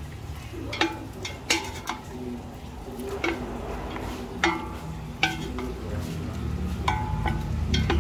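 Wooden spatula stirring pork and pork liver in a large stainless-steel pot, knocking against the pot's metal side about once a second, each knock leaving a short metallic ring.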